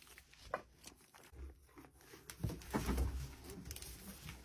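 Goats crunching and chewing broccoli: scattered crisp snaps and crunches, with a denser, louder patch of munching about halfway through.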